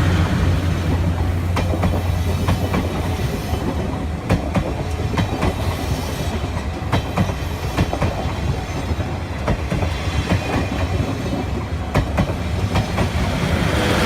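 Steam-hauled passenger train rolling past, its wheels clacking irregularly over the rail joints above a steady low rumble.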